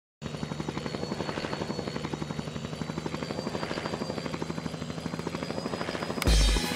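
Helicopter rotor chopping steadily at about eight beats a second over a low hum. A loud low thud comes about six seconds in.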